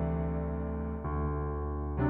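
Slow background music on an electric piano, held chords with a new one coming in about halfway through.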